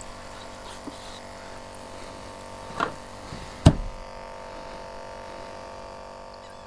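Small battery-powered aerator pump on a live-shrimp bait cooler buzzing steadily, with one sharp knock about three and a half seconds in.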